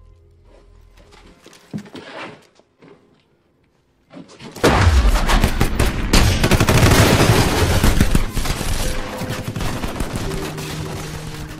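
A few soft clicks and knocks, then about four and a half seconds in, sustained automatic gunfire breaks out: many weapons firing at once, several shots a second, loud and unbroken.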